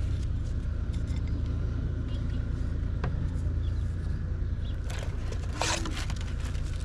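Steady low hum with a few faint clicks and scrapes of a pick tool working the old rubber seal off the oil filter housing cap.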